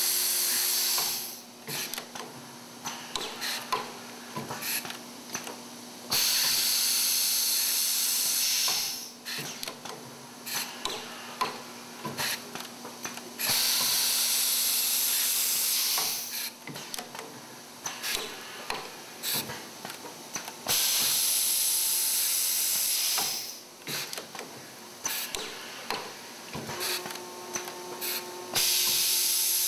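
Semi-automatic C-frame riveter cycling from hole to hole: a loud hiss of air lasting two to three seconds comes about every seven seconds, four times, with clicks and knocks from the machine in the quieter gaps between.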